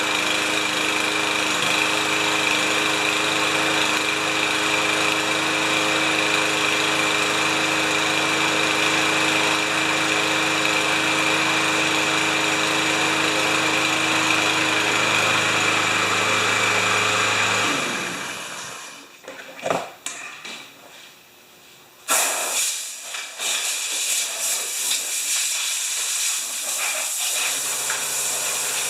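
Troy-Bilt walk-behind mower's 159cc engine running steadily after a rope repair and tune-up, then shut off about 18 seconds in and dying away. After a short lull, a sudden loud noise and then scattered knocking and rustling.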